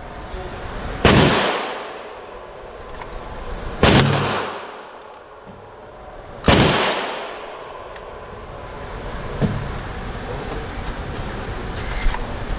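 Three loud gunshots about two and a half seconds apart, each followed by a long echoing tail off the range's walls, then a much fainter shot about three seconds later.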